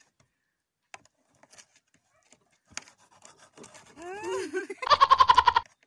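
Near silence with a few faint ticks for about three and a half seconds, then a girl's voice sliding up and down in pitch, followed by a loud vocal cry held on one pitch for under a second near the end.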